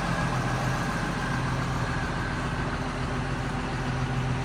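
Combine harvester running steadily while harvesting barley: an even engine and machinery drone with a low hum.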